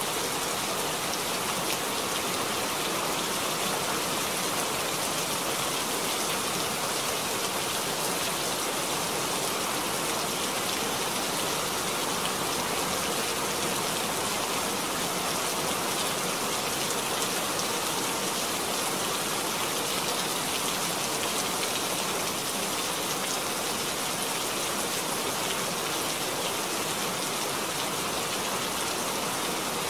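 Steady rain falling, a dense even patter that holds without lulls or changes.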